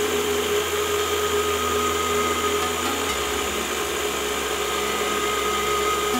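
CNC-converted G0704 milling machine cutting round aluminium stock with an end mill during an adaptive roughing pass: the spindle runs with a steady whine over the cut, and a steady hiss from the nozzle blows chips away. The machine's low tone shifts about three seconds in.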